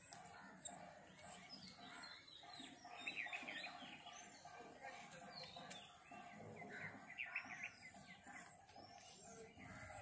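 Wild birds chirping faintly in scrub woodland, with quick runs of repeated high chirps several times over a steady faint hum.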